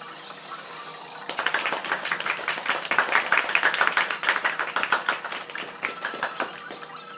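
A rapid, dense run of sharp clicks or taps, many a second: an added sound effect. It starts abruptly about a second in, is loudest in the middle, and thins out near the end.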